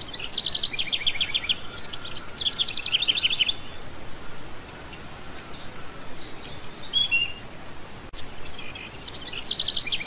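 Cockatiels chirping in quick runs of short high notes, with pauses between the runs and a few lone calls about seven seconds in.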